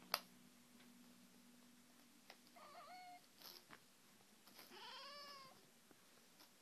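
Domestic cat giving two faint protesting meows while it holds on to a toy that is being taken from it: a short one about three seconds in, then a longer one that rises and falls. A single click comes just after the start.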